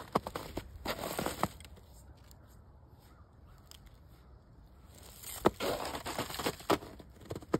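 Footsteps crunching in crusty, granular snow: a few crunching steps at the start, a pause, then another spell of steps a little over five seconds in.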